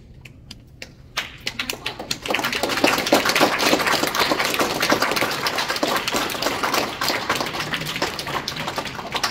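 Audience applauding: a few scattered claps about a second in, swelling quickly into full, steady applause that begins to thin near the end.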